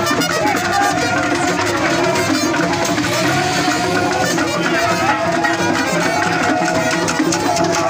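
Traditional drum music with fast, busy hand-drum and percussion strokes under a wavering melodic line, playing steadily.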